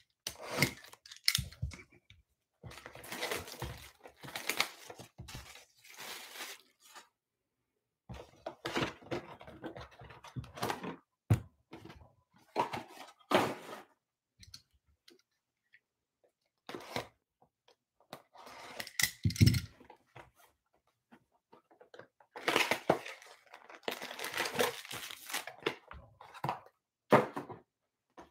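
A cardboard trading-card hobby box being opened and its foil packs taken out by hand: irregular bursts of tearing and crinkling wrapper and scraping cardboard, with short pauses in between.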